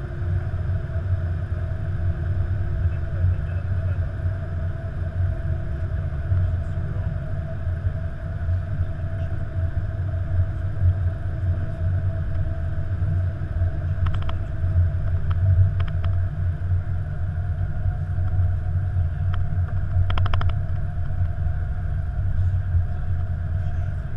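Airbus A330-200 flight-deck noise while taxiing: a steady low rumble with a steady mid-pitched hum over it.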